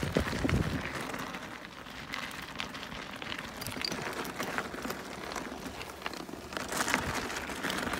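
Knobbly Michelin Wild Rock R2 mountain bike tyres rolling over loose gravel: a steady noisy hiss scattered with many small clicks of stones, with a few low knocks about half a second in.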